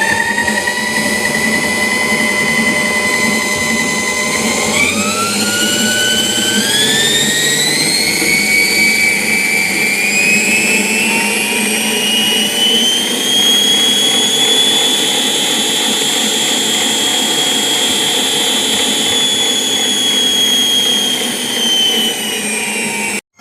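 Russell Taylors SM1500 stand mixer motor running with its belt drive, a steady whine that steps up in pitch as the speed is raised through several settings, then holds at high speed. It cuts off suddenly near the end.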